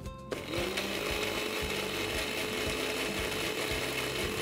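Electric blender (a countertop mixer-grinder with a tall jar) spinning up about half a second in and then running steadily. It is grinding boiled dried red chillies with garlic and whole spices into a wet chilli paste.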